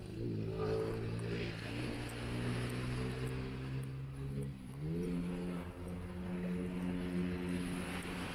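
An unseen motor engine running with a steady hum, its pitch rising about half a second in and again about five seconds in. Small waves break on the sand underneath.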